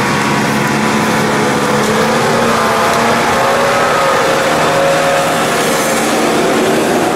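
Nissan Patrol off-roader's engine running under load as it drives past through mud, its revs rising and falling.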